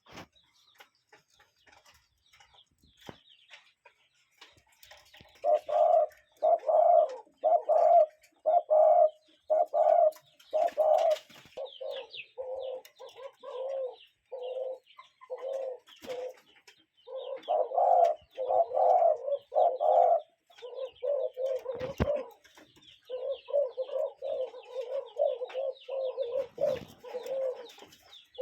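Cuckoo calling over and over: a long run of low hooting notes, about two a second, starting about five seconds in with a few short breaks. Faint higher chirps of other birds run behind.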